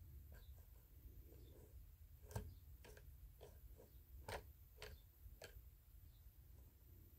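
Near silence broken by a handful of faint, irregular light clicks from a small hand-turned model log splitter's metal linkage, clustered in the middle of the stretch.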